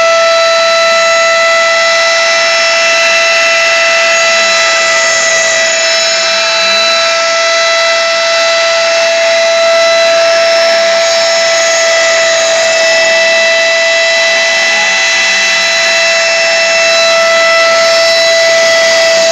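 Rotary tool serving as the spindle of a homemade CNC router, running at high speed with a steady high whine over grinding cutting noise as its bit mills an aluminium plate under water. Faint low tones rise and fall several times underneath as the machine's axes move.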